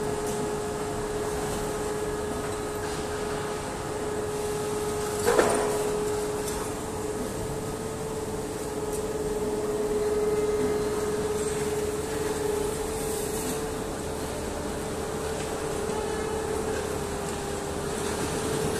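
Steady machinery hum of a steel rod mill's furnace shop, with a constant droning tone, and a single metallic clank about five seconds in.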